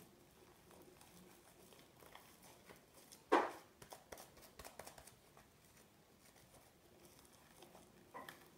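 Faint sticky clicking and crackling of homemade fluffy slime (Elmer's glue, shaving cream and laundry detergent) being kneaded and pulled apart by hand while still sticky, with one louder brief sound about three seconds in.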